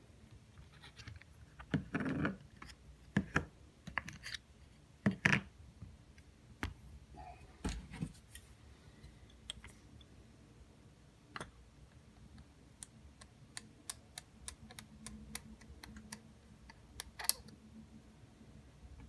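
Scattered clicks and light knocks of 1/16 scale model truck wheels and tires being worked off their axles and set down, with a handful of sharper knocks among the small handling clicks.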